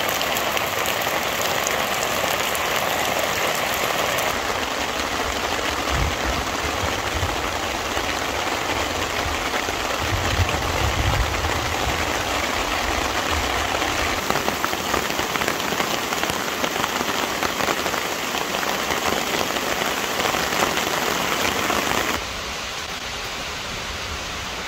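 Heavy rain pouring steadily onto the forest floor and leaf litter in a thunderstorm. Near the end it drops to a quieter, duller hiss.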